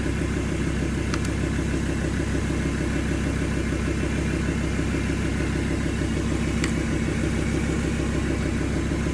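Vehicle engine idling steadily, with two faint clicks.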